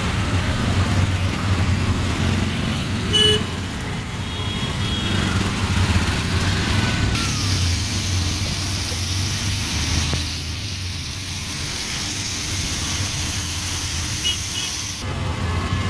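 Auto-rickshaw engine running steadily in street traffic, with a short horn toot about three seconds in. A steady hiss comes in about seven seconds in and stops near the end.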